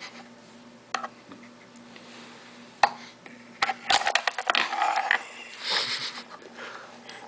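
Miniature tabletop pool balls: a few single sharp clicks, then about four seconds in a quick run of hard clicks as the cue ball breaks the rack and the small balls scatter and knock together, followed by a rustle of rolling.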